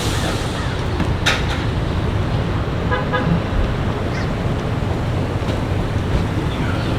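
Steady low rumble of idling cars and road traffic, with a click a little over a second in and a short stuttering beep about three seconds in.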